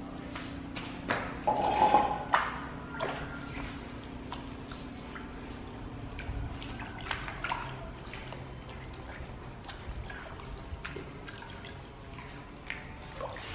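Water splashing and dripping in a plastic basin as a coarse natural whetstone is scrubbed clean by hand with a sponge, the loudest splashes about two seconds in. The stone is being washed of the loose stone dust left from quarrying.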